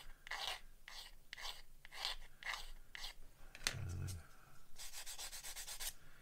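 Small file rasping back and forth over a styrene plastic kit part to clean off a moulding nub, about two strokes a second. Near four seconds comes a sharp click and a soft thump as a tool is set down on the mat, then a second of quicker, finer rubbing.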